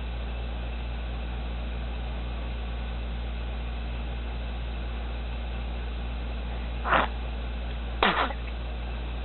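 Steady electrical hum and hiss, broken about seven and eight seconds in by two short vocal squeals, the second sliding down in pitch.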